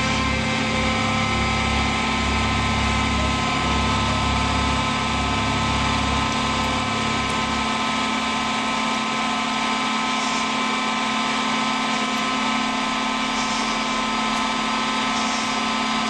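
A steady mechanical drone like an engine running, made of several held tones. A low throbbing underneath stops about eight seconds in.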